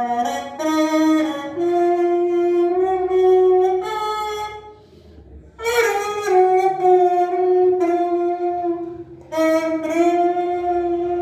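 Homemade PET-bottle horn playing a melody in long held notes, in three phrases with short breath pauses about five seconds in and again just after nine seconds.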